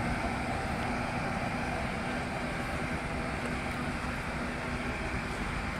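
Diesel engine of an ACE AF100D 10-ton forklift running steadily as it moves a heavy crate, a continuous drone with a faint steady hum that fades out about two-thirds of the way through.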